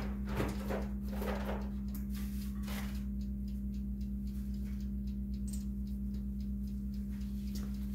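A steady low hum on one fixed tone, with a few brief faint scuffs in the first three seconds.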